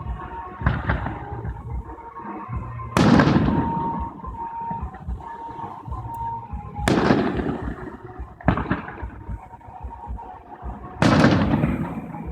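Fireworks shells bursting: three loud booms about four seconds apart, with two smaller bangs between, each trailing off in a rumbling echo.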